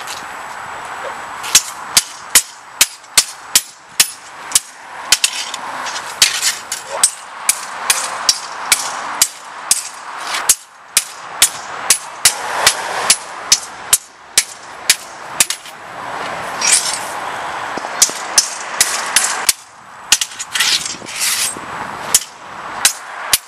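Metal sword blades clashing again and again in sparring, sharp ringing strikes often two or three a second, with short pauses between exchanges.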